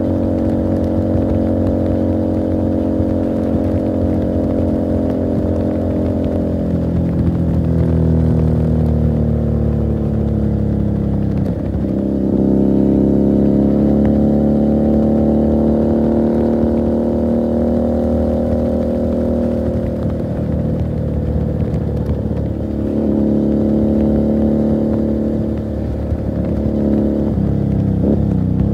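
Motorcycle engine and exhaust heard from the rider's seat while riding. The engine note climbs and drops several times, with sharp dips between climbs as the rider changes gear and eases the throttle.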